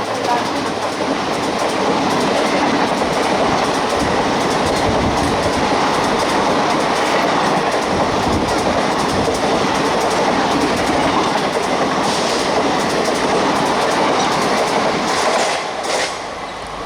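A 23-coach express train's coaches rushing past at well over 100 km/h, wheels clattering over the rail joints in a loud, steady din. The noise drops off suddenly near the end as the last coach goes by.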